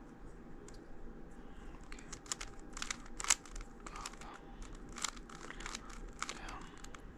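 Plastic Rubik's Cube being twisted by hand: a run of quick clicking, scraping turns, busiest in the middle, with the sharpest click about three seconds in.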